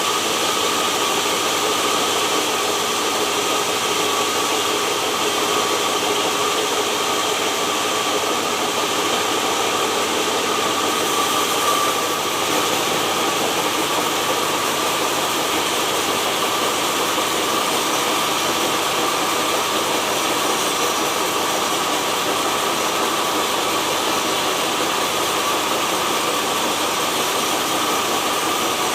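Sawmill machinery running steadily: an engine-driven saw and its drive make a continuous mechanical noise with a constant whine, unchanging throughout.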